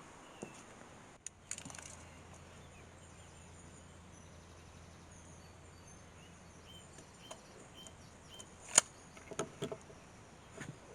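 Faint outdoor background with small birds chirping now and then over a low steady hum that stops about halfway through. A single sharp click about nine seconds in, followed by a few softer knocks.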